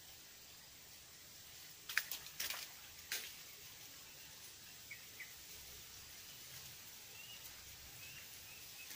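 Quiet outdoor hiss with a quick cluster of sharp clicks about two to three seconds in, then a few faint, short bird chirps.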